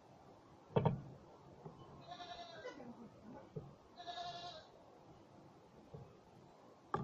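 A goat bleating twice, about two seconds in and again about four seconds in, the first call sliding down in pitch as it ends. Before that, a sharp knock as a small battery is set down on a wooden board, with another knock at the very end.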